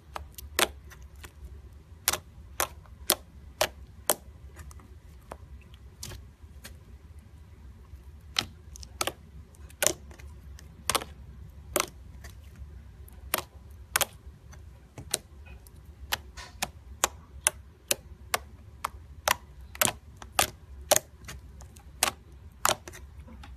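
Slime being squeezed and kneaded by fingers, giving sharp, irregular clicks and pops, about one or two a second, over a steady low hum.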